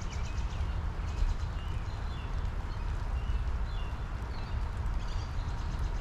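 Steady spring rain shower falling on a lilac bush, with backyard birds giving short chirping calls again and again.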